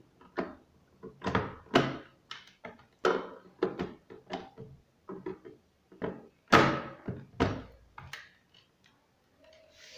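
Hard plastic knocking and scraping as the monitor's plastic stand neck is pushed and wiggled into the mounting slot on the back of the monitor to catch its locking notch: a run of separate knocks, the loudest about six and a half seconds in, another heavy one a second later.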